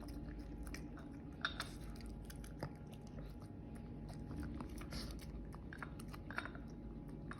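A Shih Tzu chewing and smacking on raw beef dog food: many short, irregular wet clicks and smacks of eating.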